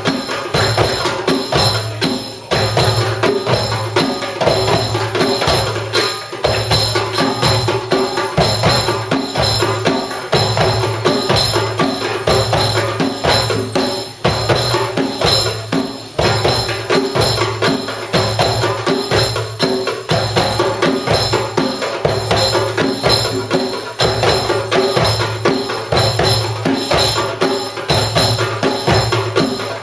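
A live hand-drum ensemble of darbukas and tambourine-style frame drums plays a steady rhythm, with deep bass strokes, sharp slaps and rattling jingles. The beat repeats evenly, with no melody instrument.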